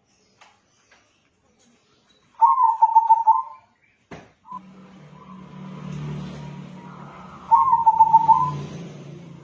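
Local crossbred zebra dove (perkutut) singing two phrases of quick staccato cooing notes, about five seconds apart. A click comes midway, and after it a low hum runs underneath.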